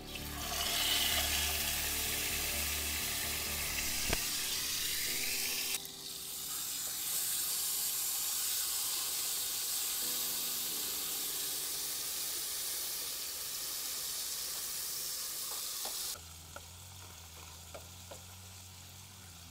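Food frying in hot oil in a pan, a loud steady sizzle with a single sharp click about four seconds in. The sizzle dips briefly about six seconds in and drops away sharply a few seconds before the end.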